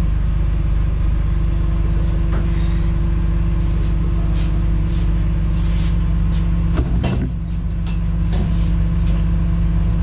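Engine running steadily at idle, a low drone, with scattered light clicks and a knock about seven seconds in.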